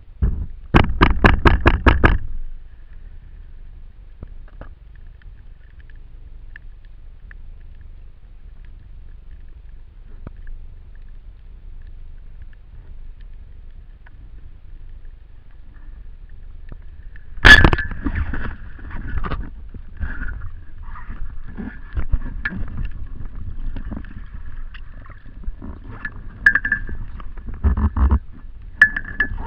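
Underwater: a fast run of clicks about a second in, then a quiet stretch until a speargun fires with one sharp, loud crack past the middle. Irregular clattering and scraping of the gun and its shooting line follow after the shot.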